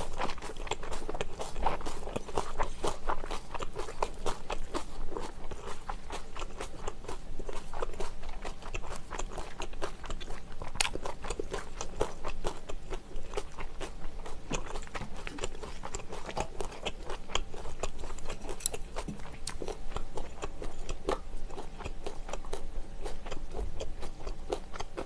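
Close-miked chewing and mouth sounds of someone eating egg fried rice, with occasional sharp clicks and scrapes of a metal spoon against a steel wok.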